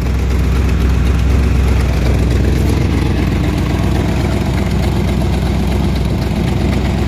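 The engine of a 1949 International rat rod truck idling steadily with an even low rumble.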